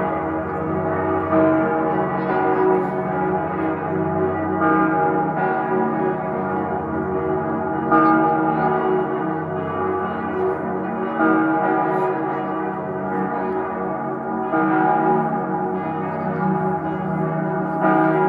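The bells of Salzburg Cathedral ringing together in a full peal: several bells of different pitch sound at once, their strokes overlapping at irregular intervals over a continuous ringing hum.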